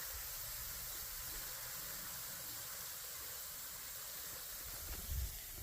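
Steady hiss of a light flow of water falling over a mostly frozen waterfall. About five seconds in, a few low thumps of footsteps in snow begin.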